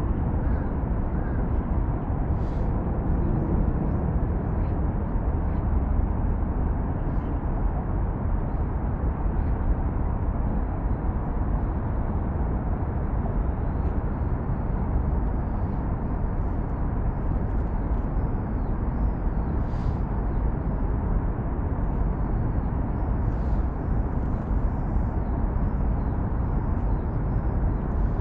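Steady low rumble of road traffic on the Seongsan Bridge across the Han River, with faint high chirps scattered through it.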